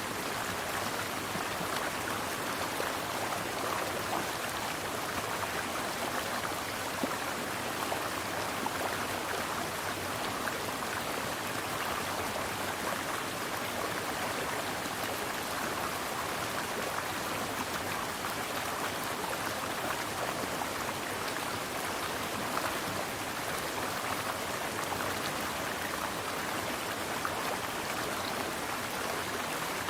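Mountain stream water flowing steadily, an even rushing with no breaks.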